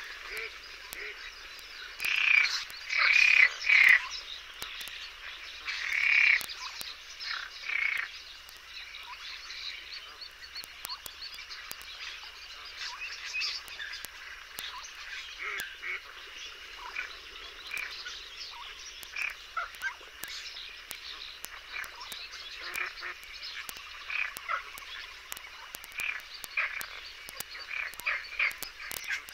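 A wetland chorus of frogs croaking continuously, with a few louder calls from about two to four seconds in and again around six to eight seconds.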